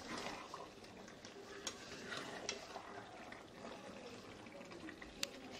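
Three sharp clinks of a utensil against cookware, the last, near the end, the loudest, over light kitchen noise while the cooked chicken curry is handled in the pan.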